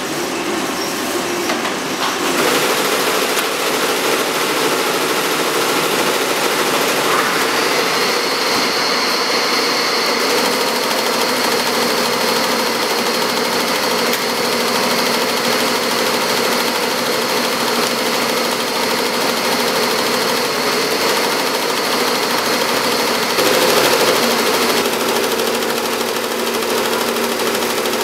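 Tajima multi-head embroidery machine running, its needles stitching at high speed in a dense, steady clatter. The sound fills out and gets louder about two seconds in.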